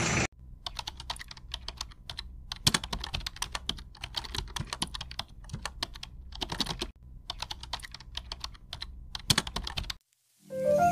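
Keyboard typing sound effect: rapid, irregular clicks of keys that run in short clusters and stop about a second before the end, where music begins.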